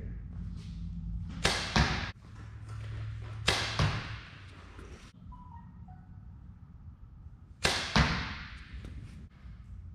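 Three shots from a PSE Brute NXT compound bow. Each is a sharp snap of the string at release, then the thud of the arrow striking the target about a third of a second later. The shots come about a second and a half in, about three and a half seconds in, and near eight seconds.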